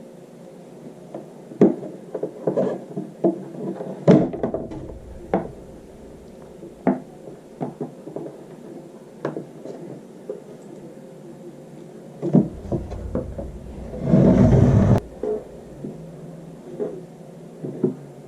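Irregular knocks and clatters of things being handled, with a longer, louder scraping or rustling noise about fourteen seconds in, over a faint steady hum.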